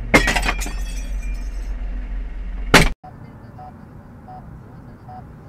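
A loud smash with a high ringing clatter that lasts over a second, then a second sharp bang, over the steady hum of an idling truck engine. After that come quieter car road noise and a faint short beep repeating about every three-quarters of a second.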